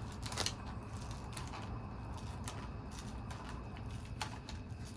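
A few scattered small clicks and light handling noises as hands work on the opened monitor's parts and tape, over a steady low hum.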